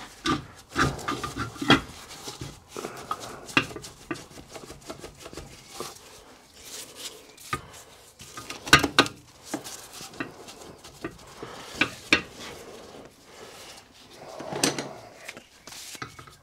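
Irregular clinks and knocks of metal on metal as steel parts and tools are handled around a cast-iron steam engine crankcase and its crankshaft. There is a short scraping rub near the end.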